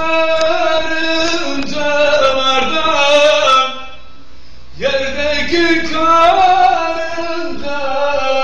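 A man singing a folk-style melody in two long, wavering phrases, with a short break for breath about four seconds in.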